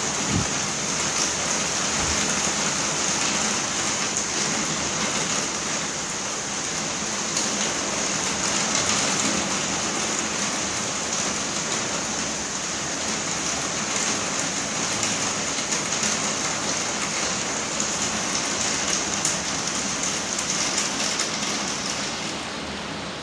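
Torrential rain pouring down, a dense, steady hiss of heavy rain on trees and a flooded street.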